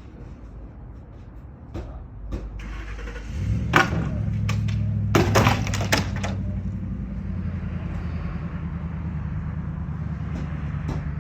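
A vehicle engine starts about three seconds in and keeps running with a steady low hum, with a few sharp clattering knocks a second or two after it starts.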